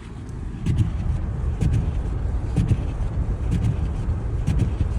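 A car driving slowly on a snow-covered road, heard from inside the cabin as a steady low rumble of engine and tyres. Faint ticks come about once a second.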